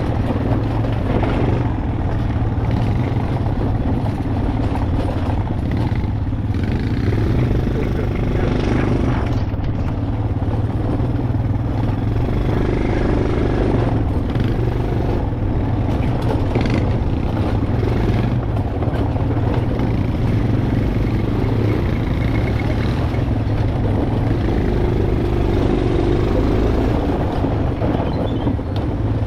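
ATV engine running steadily under way, with a constant low drone and rumble.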